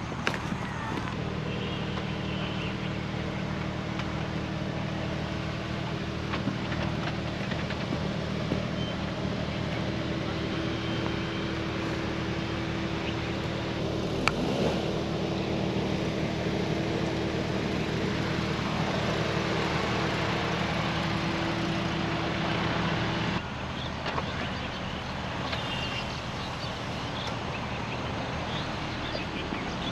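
Suzuki Jimny's 1.5-litre four-cylinder petrol engine running at steady, unchanging revs as the SUV crawls over a dirt off-road track. The engine note breaks off abruptly a little over twenty seconds in, and a quieter engine sound follows.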